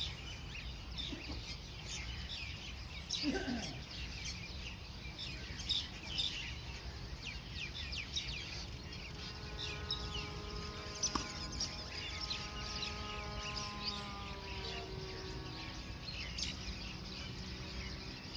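Small birds chirping over a steady low outdoor rumble, with one sharp knock about halfway through.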